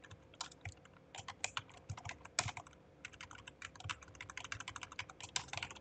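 Typing on a computer keyboard: quick, uneven runs of keystrokes as a line of code is entered.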